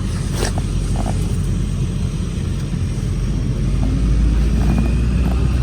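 Low steady rumble of a motor vehicle, growing a little louder about four seconds in.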